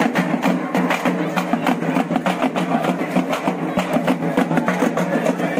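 Large hand-held street drums beaten with sticks in a fast, steady rhythm, over the chatter of a crowd.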